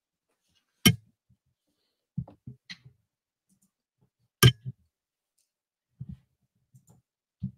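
Two sharp clicks, about a second in and about four and a half seconds in, with a few short faint low knocks between them and near the end.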